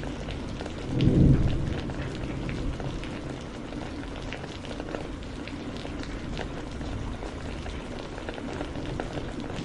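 Steady rainfall, a continuous hiss with the patter of individual drops hitting a surface. About a second in there is a short, loud low rumble that fades over the next second.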